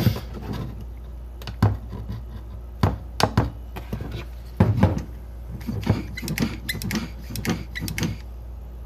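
Plastic clicks and knocks as a hand vacuum pump's hose is fitted to a VW D-Jetronic MAP sensor, then several squeezes of the pump, about two a second, drawing vacuum on the sensor to test its diaphragm for leaks.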